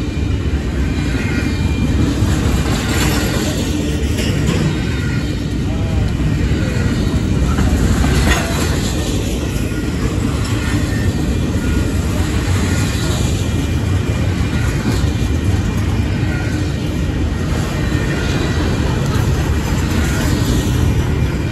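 Double-stack intermodal freight train rolling past at close range: a steady, loud rumble and clatter of steel wheels on the rails, with a few louder clanks from the cars.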